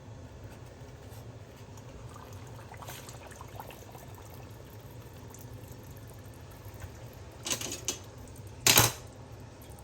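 Kitchen food-preparation sounds over a steady low hum: faint water and handling noises, then two short noisy bursts near the end, the second one the loudest.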